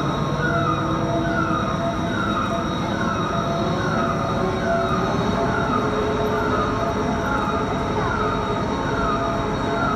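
Overhead travelling crane hoisting a railcar body: a steady motor hum, with a short falling tone repeating about every two-thirds of a second.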